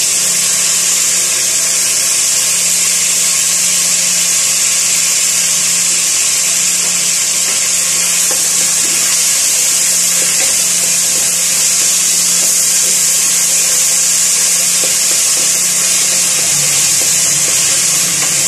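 Chopped onion and tomato sizzling loudly in hot oil in a stainless steel pot, the hiss starting suddenly as they go in and then holding steady while they are stirred with a wooden spoon.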